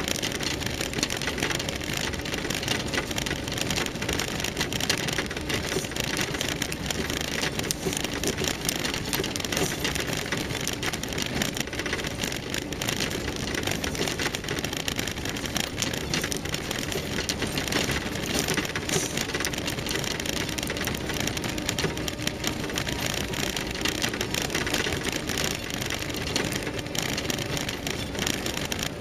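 Land Rover Series III driving over a loose gravel and stone track: the engine runs steadily under a continuous dense crackle of stones crunching under the tyres.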